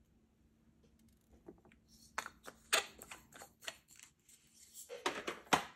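Irregular small plastic clicks and taps of a diamond painting pen picking up resin drills from a plastic tray and pressing them onto the canvas, with a quick run of clicks near the end.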